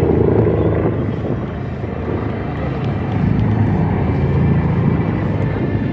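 Military aircraft engine noise, a steady low drone as an aircraft flies past, dipping a little about two seconds in and building again a second later.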